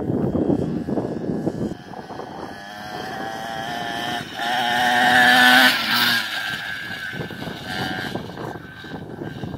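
A child's mini bike motor running as it rides along, growing louder to a peak about five or six seconds in, then fading away.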